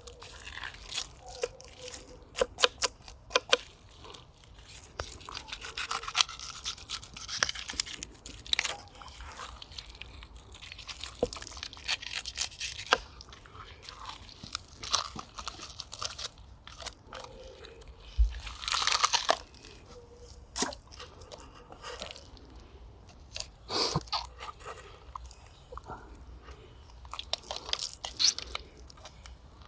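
Knife blade cutting into a fish: irregular crunches and sharp clicks as it goes through skin and flesh, with a longer scraping stroke a little past the middle.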